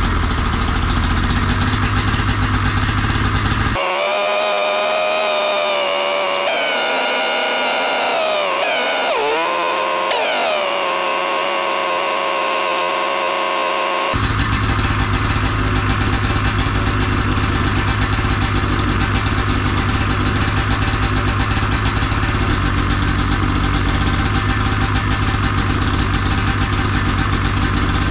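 Ski-Doo MXZ snowmobile's Rotax 500 two-stroke twin engine idling steadily while it warms up. Its speed dips briefly and comes back up about nine to ten seconds in.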